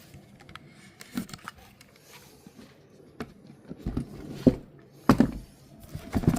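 A cardboard box being handled and prised open by hand: rustling and scraping with scattered sharp knocks and taps, the loudest about four, five and six seconds in.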